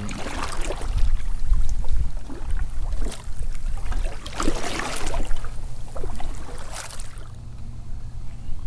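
Water splashing and sloshing around a kayak in a series of irregular splashes that die down after about seven seconds, over a low wind rumble on the microphone.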